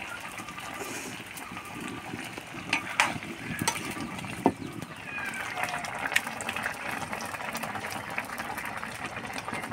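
Ash gourd curry bubbling and sizzling in a black kadai over a wood fire, with a metal ladle clinking against the pan a few times between about three and four and a half seconds in.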